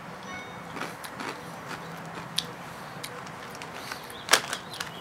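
Crunchy fried corn kernels (Boy Bawang Cornick) being chewed: a few scattered crunches, the loudest about four seconds in.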